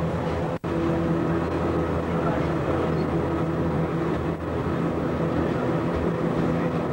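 Electric rack railway car of the Rochers de Naye line running steadily, heard from inside the car: a constant hum from the drive with rumbling running noise. The sound cuts out briefly just over half a second in.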